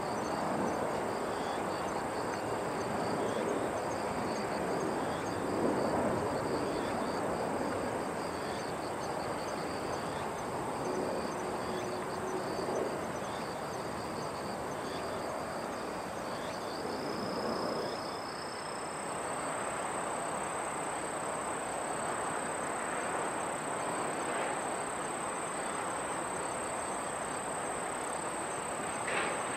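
Insects chirping outdoors, with faint repeating chirps about every second or two over a steady background hiss. A steady high-pitched buzz joins about two-thirds of the way through.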